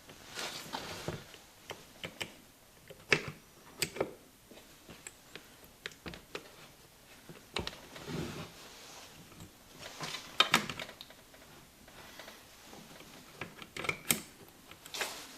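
Irregular metal clicks and clinks from gearbox parts being handled and fitted into the engine cases, with a few sharper knocks.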